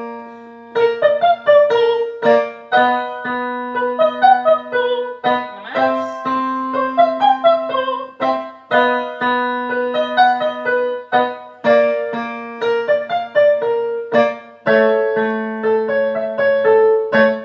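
Digital piano playing a vocal warm-up accompaniment: short staccato note patterns moving by thirds within the span of a fifth, over held lower notes, repeated about every two to three seconds and stepping on to a new key each time.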